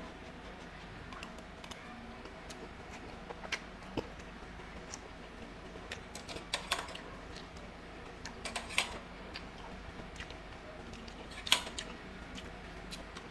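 Eating sounds: a metal spoon clicking and scraping against foil cups while scooping grilled balut, and mouth clicks from chewing, heard as scattered sharp clicks over a faint steady hum.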